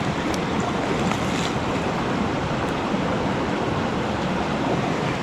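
Creek water rushing, a steady, even wash of noise.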